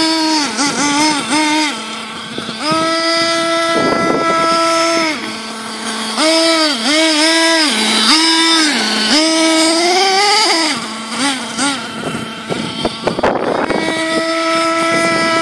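Small two-stroke nitro engine of a Thunder Tiger MTA4 S28 RC truck running through a twin exhaust, first test run. It holds a high steady whine, then dips and picks up again many times as the throttle is blipped. About two-thirds of the way in it revs up in a rising whine before dropping back. There are two short bursts of rough noise, one about a quarter of the way in and one near the end.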